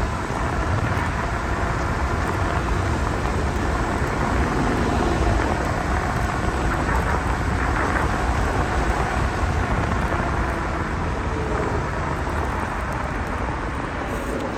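Steady rushing wind noise on the microphone and tyre rumble from a Dualtron Victor electric scooter riding along an asphalt path at speed, with road traffic alongside.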